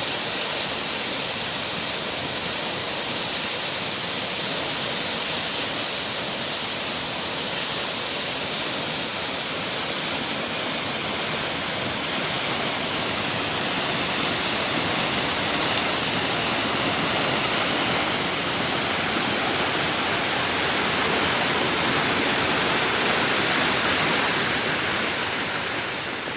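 Waterfall: water falling and crashing, a steady rush without a break.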